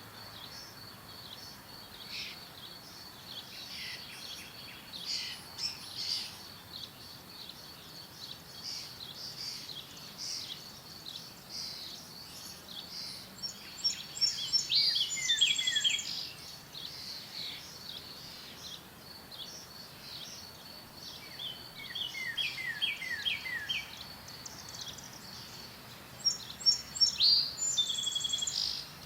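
Several wild birds chirping and singing, with two louder song phrases of quick falling notes, one about halfway through and one near the end. A steady high tone runs underneath.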